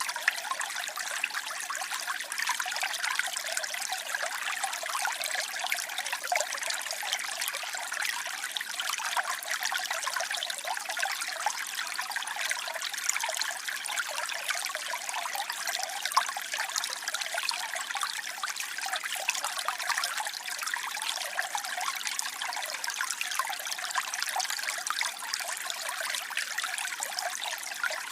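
Waterfall: falling water making a steady, even hiss, bright and without any deep rumble.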